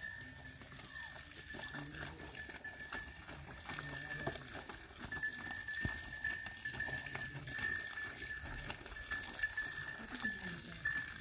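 Livestock, likely a small flock of sheep and goats, moving about with scattered light clicks and clatter and a few low calls.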